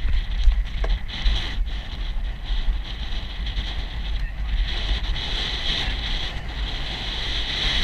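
Wind buffeting the microphone of a camera worn by a galloping rider: a steady rush with a deep rumble and a hiss over it, rising and falling without a clear beat.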